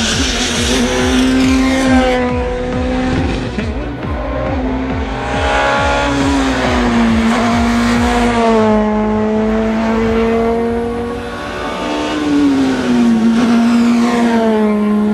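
Peugeot 207 S2000 rally car's 2.0-litre naturally aspirated four-cylinder engine at high revs on a stage. It climbs in long rising sweeps and drops back sharply at each gear change, several times, lifting and pulling again through the bends.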